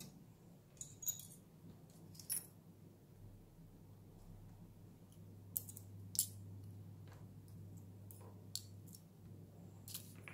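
Faint, scattered small clicks and taps as tiny smartphone parts, the circuit board and a precision screwdriver are handled and set down on a silicone repair mat, over a steady low hum.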